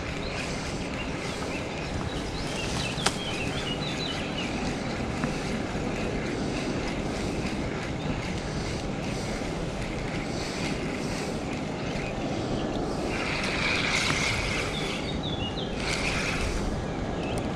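Wind buffeting the microphone in a steady rumbling hiss, with a few short high chirps now and then and one sharp click about three seconds in.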